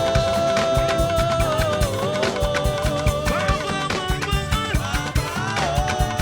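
Live gospel band music with a steady, fast drum-kit beat and a long held melody line that slides down about two seconds in.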